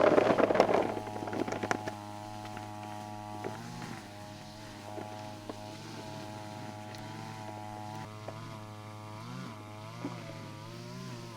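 A small engine running steadily, its pitch wavering slightly a few times. A loud clattering, rushing noise comes in the first second or two.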